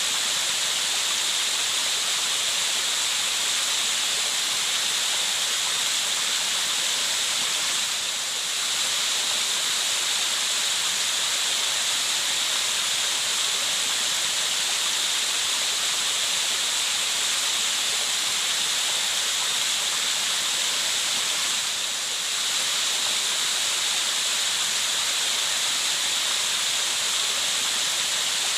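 Steady rushing water, like a waterfall, a continuous even hiss weighted toward the high end, dipping slightly twice.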